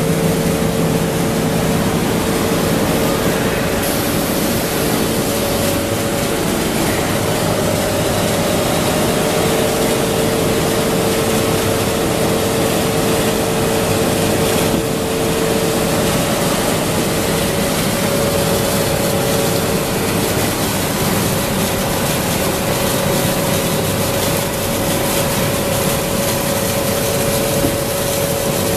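High-speed PVC cling film cast line and winder running: a steady, loud machine noise with a constant hum and a whine that fades in and out.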